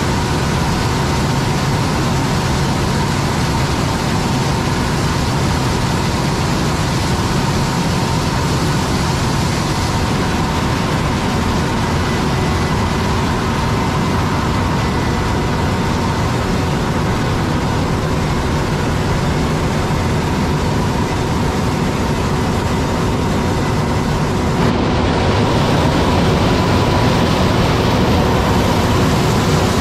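John Deere S680 combine harvester running steadily while harvesting corn: a continuous machine noise with several constant whining tones. The sound shifts and gets a little louder about 25 seconds in.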